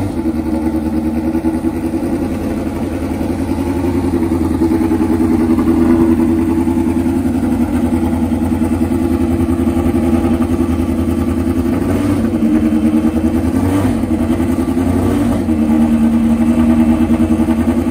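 1978 March 78B Formula Atlantic car's four-cylinder racing engine running steadily near idle, with a few small rises in revs in the second half.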